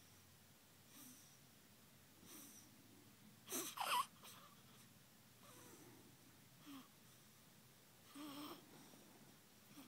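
Three-week-old baby's faint sleepy breathing, with small grunts and snuffles every second or so and a brief high squeak about four seconds in.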